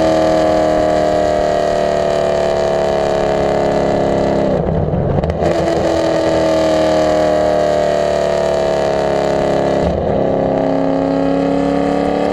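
Cammed 2015 Camaro Z/28's 7.0-litre LS7 V8 exhaust running hard at high revs while driving, heard close to the tailpipes, with a lopey aftermarket-cam note. The note breaks briefly twice, about four and a half and ten seconds in.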